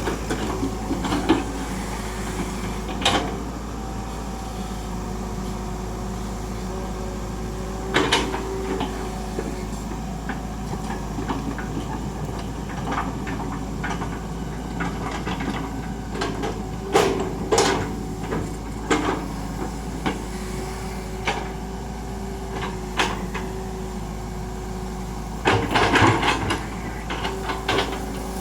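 Excavator running steadily, broken by sharp clunks and knocks from the machine at work, a few spread out and a cluster of them near the end.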